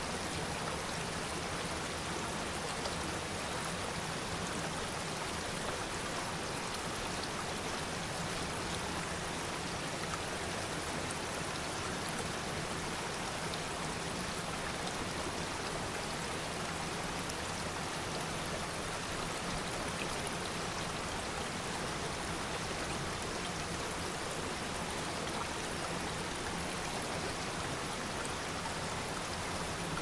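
Water of a rocky waterfall pouring over rocks: a steady, even rush of water noise with no breaks or single events.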